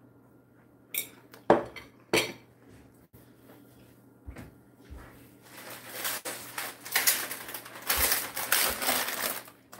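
A few sharp clinks of a fork and plate, then several seconds of a plastic cookie package crinkling and rustling as it is carried and handled.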